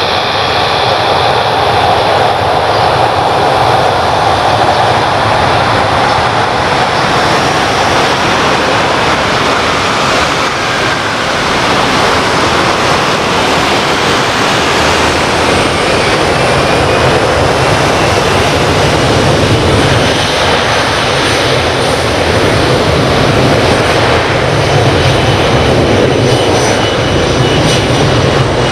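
Boeing 737-300 freighter's CFM56 turbofan engines running loud and steady at high power as the jet rolls down the runway for take-off, with a faint whine that rises about halfway through.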